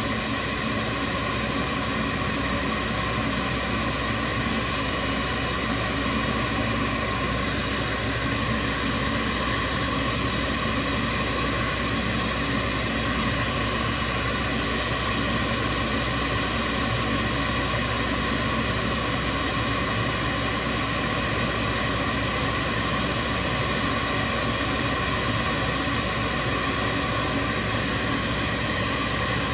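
Jet airliner's turbofan engine running steadily at idle: an even rushing noise with a steady high whine through it.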